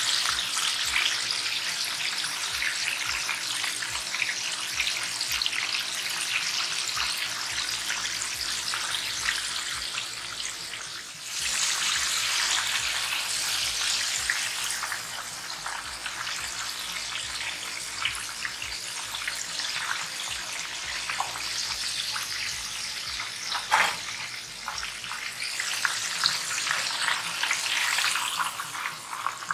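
Flour-coated chicken wings deep-frying in a pot of hot oil: a steady sizzle full of fine crackling. It dips briefly about a third of the way through, then comes back louder, with one short knock about four-fifths of the way through.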